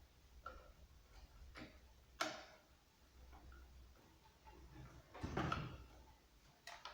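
Scattered light clicks and knocks, with a sharper click about two seconds in and a fuller, muffled knock about five seconds in.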